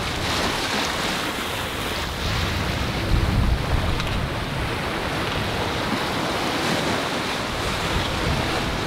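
Wind and sea water rushing around a sailing yacht under way, a steady noise with wind buffeting the microphone and a louder low gust about three seconds in.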